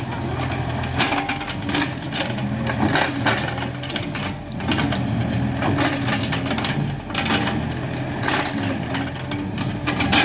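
Excavator engine running steadily, with repeated short knocks and scrapes, typical of the bucket working against gravel and rubble.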